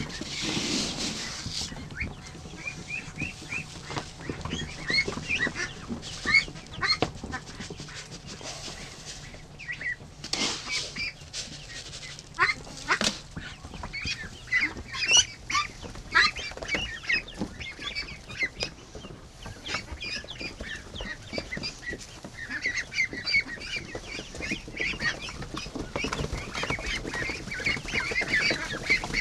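Ducklings and young ducks peeping in a dense chorus of short, high chirps, with a few louder rustles and knocks near the start and around the middle.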